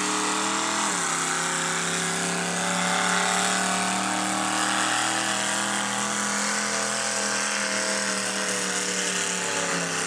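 Modified pulling tractor's engine running hard at high revs under load while pulling the weight-transfer sled. Its pitch climbs about a second in, then holds steady and eases slightly near the end.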